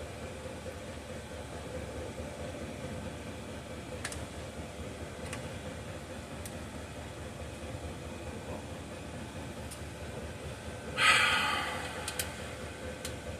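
A few faint clicks of hand tools working on a Poulan Farmhand 2900 chainsaw, over a steady hum. About eleven seconds in, a short, loud hissing burst that fades within a second.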